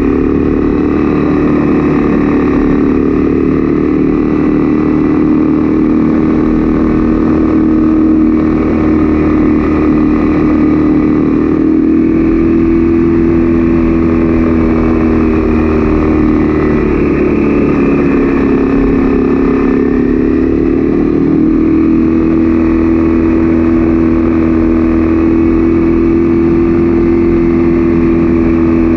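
Honda CB300F's single-cylinder engine running steadily while riding. About two-thirds of the way through, its pitch drops and then climbs back.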